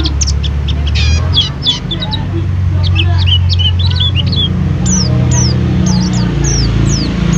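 White-eye (pleci) singing a busy run of short high chirps and quick downslurred whistles, over a steady low hum.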